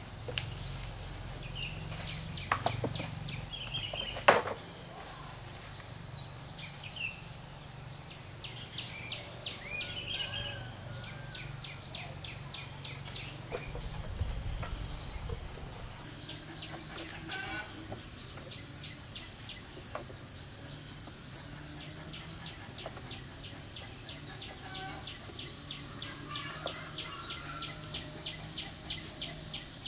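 Steady high-pitched insect drone, with a few short bird chirps and two sharp knocks, the louder about four seconds in.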